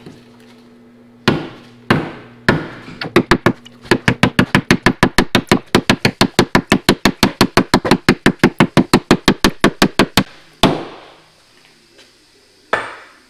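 Sledgehammer pounding the sheet-metal seam in a car's front wheel well, bending the seam over to make room for bigger tires. A few spaced blows, then a fast even run of several blows a second for about six seconds, then two last single strikes.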